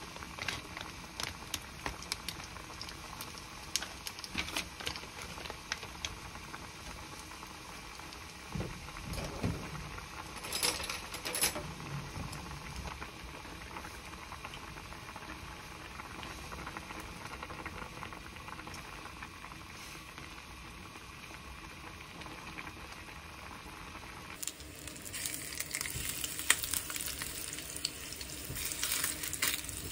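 Pot of kimchi udon broth boiling, bubbling steadily, with scattered clicks and knocks in the first few seconds and a brief louder stretch around ten to twelve seconds in. About four fifths of the way through it changes to potato croquettes sizzling as they fry in oil in a pan.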